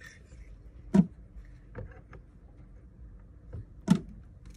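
Handling knocks from a heavy silver-plate silverware piece being set into a roller bracelet bending machine. There are two sharp knocks about three seconds apart, with a few lighter clicks between them.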